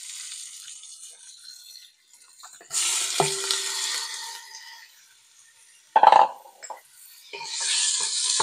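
Raw chicken chunks sizzling in hot olive oil in a saucepan. The sizzle grows louder, with a knock, as the rest of the pieces are tipped in about three seconds in. After a sharp clatter about six seconds in, it builds again as a spatula stirs them near the end.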